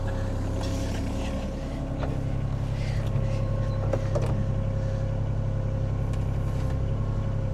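The diesel engine of a John Deere 26G mini excavator running steadily, a little louder from about two seconds in.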